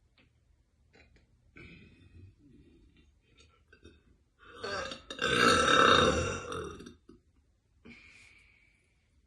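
A woman's long, loud burp about halfway through, lasting about two and a half seconds, with a few faint sounds before it.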